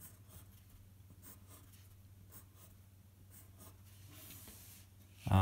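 Mechanical pencil scratching on paper in a series of short, quick strokes as small chevron marks are drawn, with a slightly longer scratch about four seconds in.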